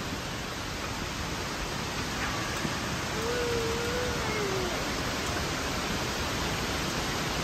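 Steady rush of falling water from an indoor waterfall. A faint voice is heard briefly about three seconds in.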